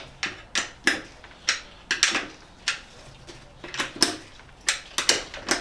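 Socket wrench tightening a bicycle wheel's axle nut: an uneven string of sharp metallic clicks, about two a second.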